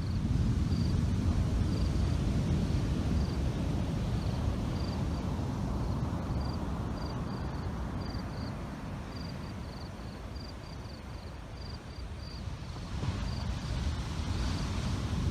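Typhoon wind buffeting the microphone in a steady rumble that eases a little midway and picks up again near the end. Faint short high chirps repeat over it.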